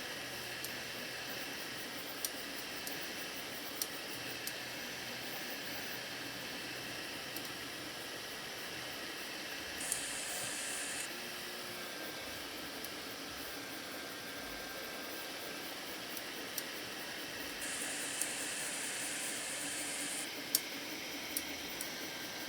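Anycubic Kobra 2 Pro 3D printer running over a steady fan hiss, with sharp single clicks coming at irregular intervals, about a dozen in all. Twice a brighter, higher hiss swells for a second or a few seconds and then drops back.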